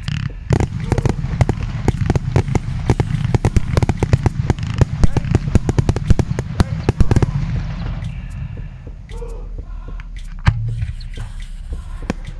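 Ground-fired consumer firework battery (cake) going off: a dense run of rapid cracks and crackling for about eight seconds, then thinning to scattered pops as the effects die away.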